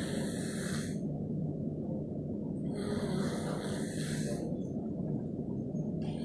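A person snoring: a hissing, rasping breath about every three seconds over a steady low rumble.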